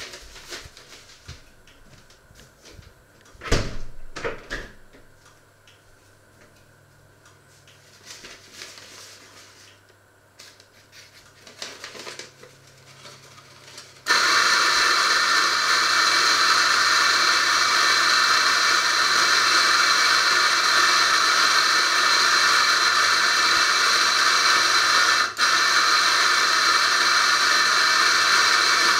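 A few knocks, then about halfway through a loud, steady hiss like rushing air or a fan starts suddenly and holds, with one brief dropout near the end.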